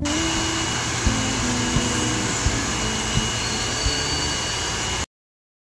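Handheld hair dryer running steadily at close range, a continuous blowing noise with small regular knocks about every two-thirds of a second. It cuts off suddenly about five seconds in.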